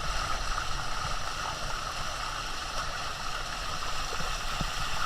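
Shallow water rushing steadily over the limestone rocks of a waterfall, a continuous stream-like rush with some low rumble.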